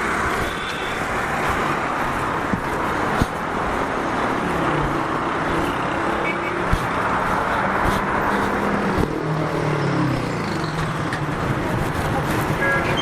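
City street traffic: a steady din of motor vehicles running past, with a low engine hum coming and going in the middle of the stretch and a few sharp clicks.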